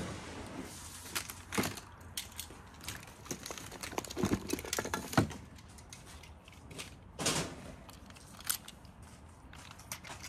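Small toy cars and trucks being handled, with crinkling and rustling and scattered short clicks and knocks.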